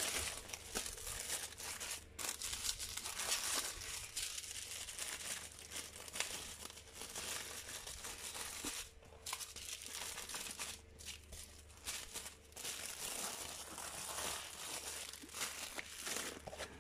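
Clear plastic bags and wrapping of a diamond painting kit crinkling as they are handled and unpacked, in uneven bursts with short breaks.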